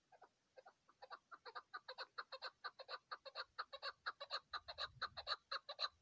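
Chukar partridge calling: a long run of short clucking notes, sparse and faint at first, then from about a second in coming several times a second and growing louder.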